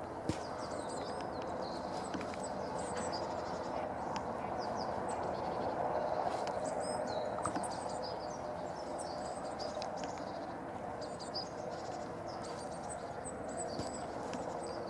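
A flock of bramblings calling: many short high chirps, scattered and overlapping, over a steady low background noise.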